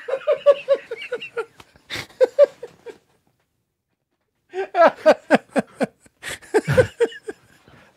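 Two men laughing hard in rhythmic runs of 'ha-ha' pulses, breaking off into a gap of silence of about a second and a half in the middle before the laughter starts up again.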